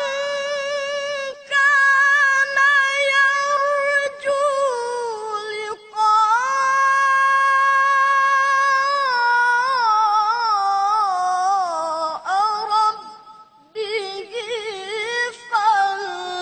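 A boy reciting the Quran in melodic tilawah style: a high voice holding long, ornamented notes that waver and slide between pitches, with short breaks for breath.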